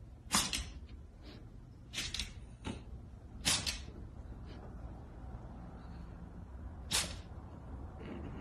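A run of short, sharp clicks or taps at uneven spacing, about eight in all. The loudest come near the start and about three and a half seconds in.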